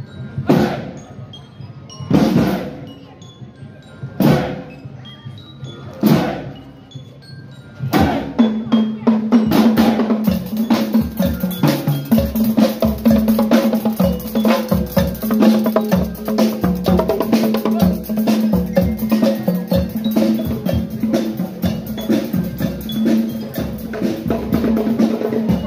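Parade drum band: single heavy bass-drum beats about every two seconds. About eight seconds in, the band breaks into a fast, dense drum and percussion rhythm with snare and wood-block strokes over a steady held note.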